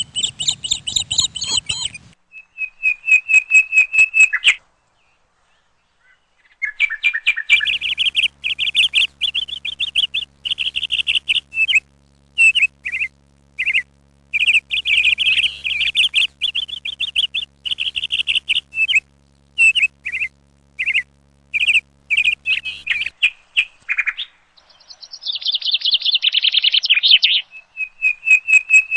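A small bird chirping and trilling in quick, rapid-fire bouts with short pauses, and a silent break about five seconds in. A faint low hum sits under the chirping from about seven seconds in until about twenty-three seconds in.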